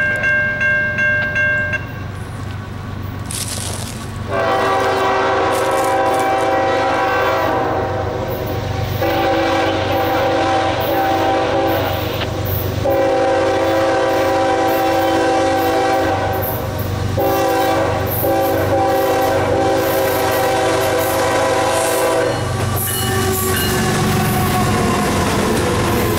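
Grade-crossing bell ringing for the first two seconds. Then the lead Norfolk Southern GE ES44AC's air horn sounds a chord in several long blasts, the last held longest, as the train approaches the crossing. Near the end the locomotives pass close by, with engine rumble and wheels clacking over the rail joints.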